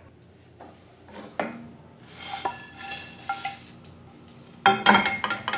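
Dry-roasted whole spices (coriander seeds, dried red chillies, cinnamon sticks) scraping and rattling in a non-stick pan as they are poured out onto a ceramic plate. A few knocks come about a second in, and a sharp, ringing clatter of the pan against the plate near the end is the loudest sound.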